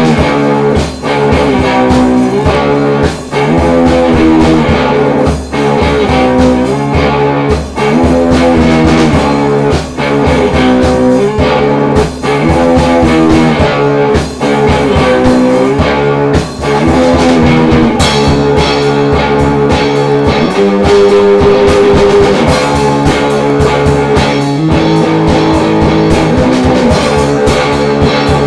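Guitar-led soundtrack music with a steady beat, growing fuller about two-thirds of the way through.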